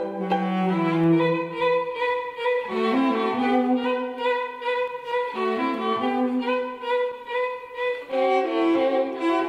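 Bowed string music: cellos playing slow, sustained notes in several parts, the notes changing every second or two.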